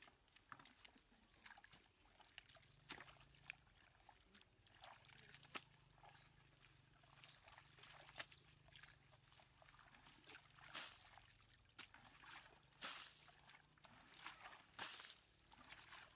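Faint sloshing and splashing of muddy pond water as buckets are dipped in and tipped out by hand. In the second half, a louder splash comes about every two seconds.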